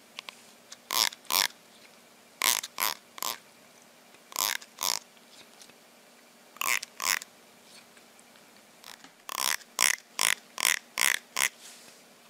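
Teeth of a plastic comb strummed with a fingertip, short rasping zips in twos and threes, then a quicker run of about six near the end.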